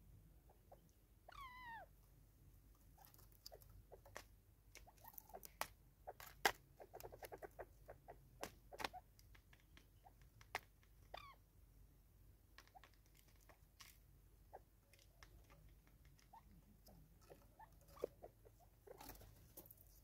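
Natal spurfowl pecking seed from a plastic bottle and off a wooden tree stump: faint, irregular sharp clicks and taps, thickest in the middle. A short wavering bird call sounds about a second and a half in, and another about eleven seconds in.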